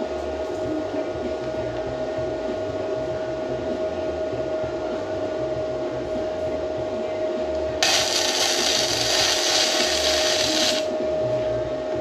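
Hynade MTS155 FX flux-core welder, set to its lowest wire-speed and voltage settings, striking an arc for a short bead of about three seconds: a crackling, hissing arc starts suddenly about eight seconds in and cuts off abruptly, over a steady whine.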